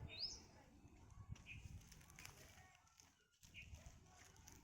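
Faint bird chirps in quiet surroundings: a short rising call near the start, then brief lower notes twice more, over a low background rumble.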